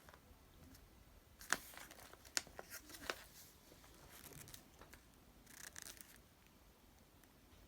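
Faint handling noises: a few sharp clicks and crinkling rustles, like packaging being moved about, with a short rustle near the end.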